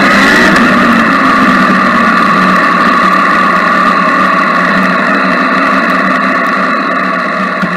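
Yamaha MT-09's inline three-cylinder engine running steadily at low revs, picked up by an action camera's microphone on the bike.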